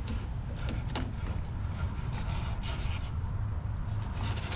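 Fillet knife scraping and cutting along a sheepshead's bones in short, irregular strokes, over a steady low rumble of wind on the microphone.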